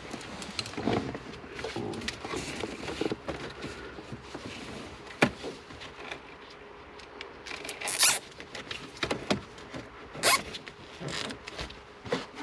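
Wiring being handled and tied up under a car's dashboard: rustling and small clicks and knocks, with a few short zipping sounds.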